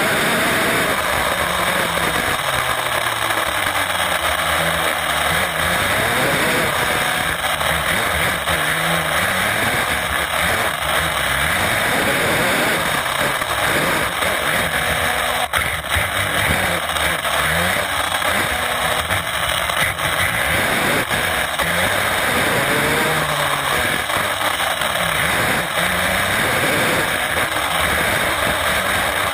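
HPI WR8 Flux 1/8-scale brushless electric RC rally car heard from onboard while driving hard: the motor and gear whine rises and falls with the throttle over a steady rush of tyre and road noise. A single sharp knock about halfway through.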